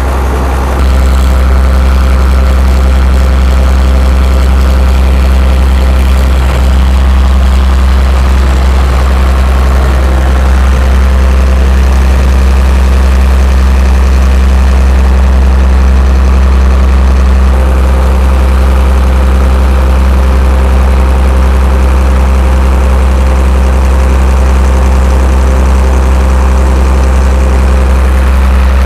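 Engine of a big 16-inch water pump running steadily with a loud, deep, even drone, stepping up a little in level about a second in and then holding.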